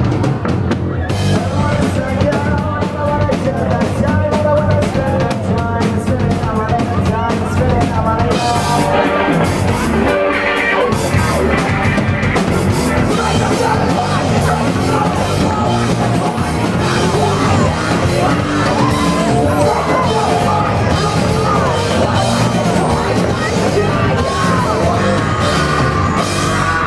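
A rock band playing live at loud volume: drum kit, electric guitar and bass guitar, with singing.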